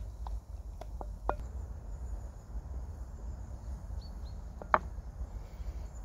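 A few scattered sharp clicks and knocks, the loudest one about three-quarters of the way through, over a low steady rumble.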